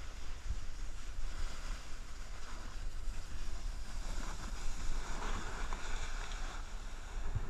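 Snowboard sliding down packed snow: a steady scraping hiss, growing brighter for a moment about five seconds in, with wind rumbling on the camera's microphone.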